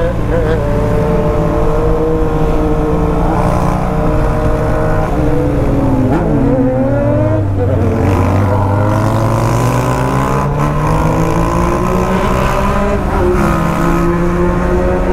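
BMW R1200 GS boxer-twin engine heard from the rider's seat while riding. Its note falls about halfway through as the bike slows, then climbs again as it picks up speed.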